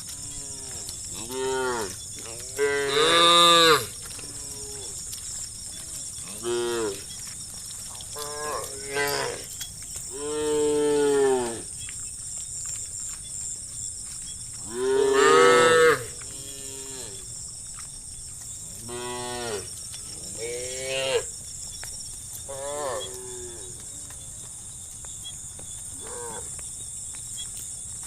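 A herd of cattle mooing, one call after another from different animals, some short and some long and drawn out, each rising and then falling in pitch. The loudest calls come about three seconds in and about fifteen seconds in.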